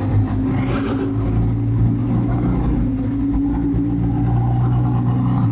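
Ferrari race car engine running at a steady speed, without revving.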